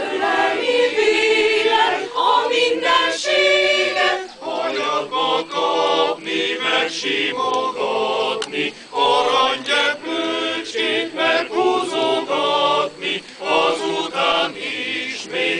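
Mixed choir singing a cappella in Hungarian, in short, clipped phrases with brief breaths between them.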